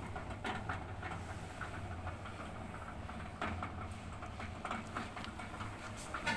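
Washing machine drain pump humming steadily, with irregular clicks and knocks over the hum. Its broken impeller is not moving the water out.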